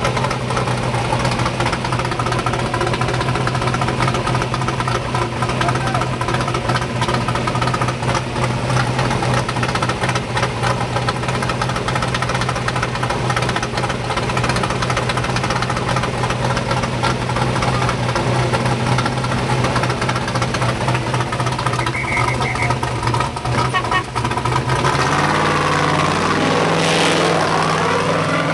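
Trophy truck's race engine idling loudly and steadily; about 25 seconds in it revs up in rising sweeps as the truck pulls away.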